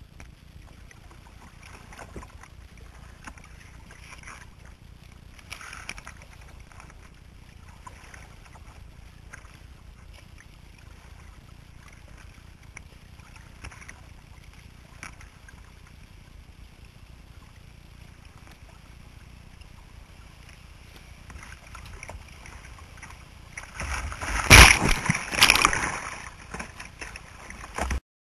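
Kayak paddling on a river: soft paddle splashes every couple of seconds over a faint wash of moving water. Near the end comes a few seconds of loud splashing and sloshing close to the hull.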